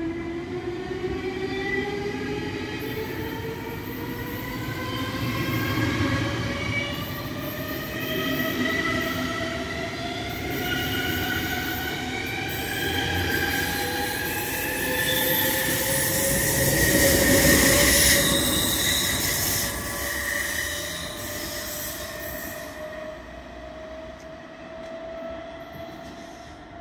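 SBB double-deck electric train pulling out and accelerating away, its traction drive whining in several tones that rise steadily in pitch. The sound is loudest about two-thirds of the way through and fades as the train draws off.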